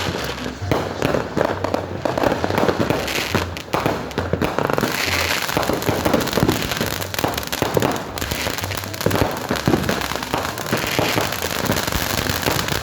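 Fireworks and firecrackers going off without a break: a dense, rapid run of sharp bangs and crackles.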